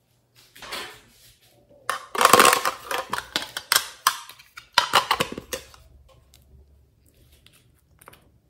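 Small hard plastic containers clattering and clicking as they are picked up and handled. The clatter comes in two busy stretches in the middle, with a single click near the end.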